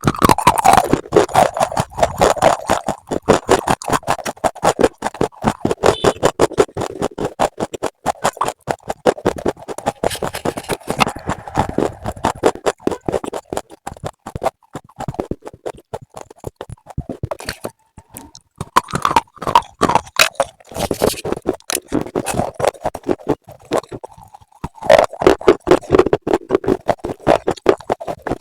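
Close-up crisp crunching and chewing of slate, rapid crunches coming in runs, with quieter gaps about fourteen and twenty-four seconds in.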